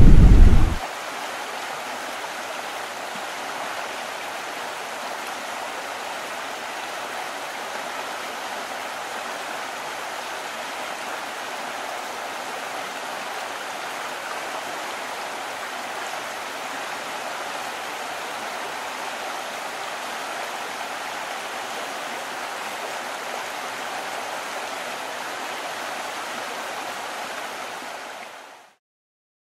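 Fast-flowing river water rushing with a steady, even noise, fading out near the end. A loud low rumble cuts off about a second in.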